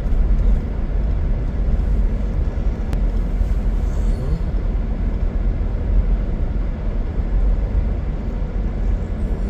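Steady low rumble of a car driving along, engine and tyre noise on the road.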